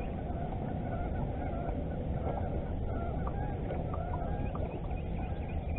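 Geese honking: many short calls from a flock, overlapping, over a steady low rumble.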